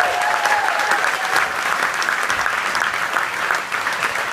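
Theatre audience applauding steadily as a band concert ends, with a held high note from someone in the crowd in the first second.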